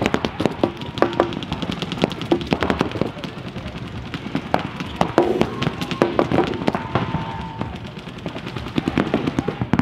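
Paintball markers firing rapid, overlapping strings of shots from several players at once.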